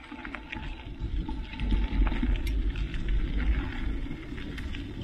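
Mountain bike rolling along a gravel dirt road, its tyres crackling over the stones, with wind rumbling on the microphone. The wind rumble swells after about a second and is loudest in the middle.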